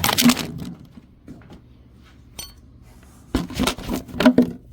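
Clinking and rattling handling noise as a wall receptacle and its wires are pushed into the electrical box, in two bursts at the start and near the end, with a single sharp clink in the quiet middle.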